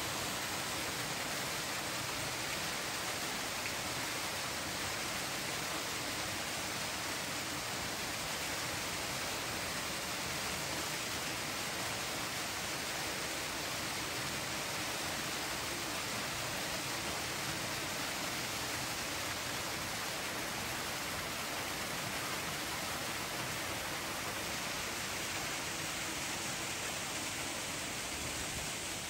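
Steady, even rushing noise that does not change throughout.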